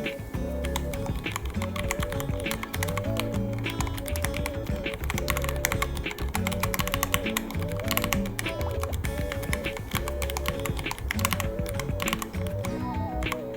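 Fast, continuous typing on a Ducky One 3 mechanical keyboard, a dense run of key clicks. Background music with a melody and a bass line plays under it.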